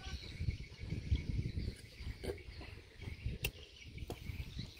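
Outdoor ambience: insects chirping steadily over a low, uneven rumble, with a single sharp click about three and a half seconds in.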